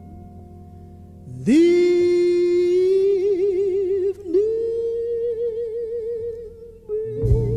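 Background music: a faint sustained keyboard chord, then about a second and a half in a singer comes in, holding long notes with a wavering vibrato. Heavier low accompaniment joins near the end.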